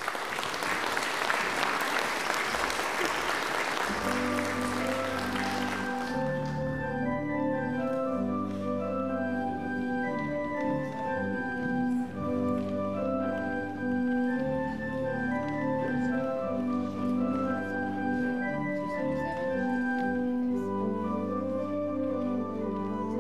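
Congregation applauding for about six seconds, then a church organ comes in with held bass notes under changing chords and keeps playing.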